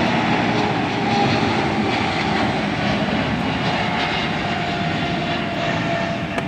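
Jet airliner's engines at takeoff power as it climbs away after liftoff: a steady rushing noise with a faint whine, slowly fading.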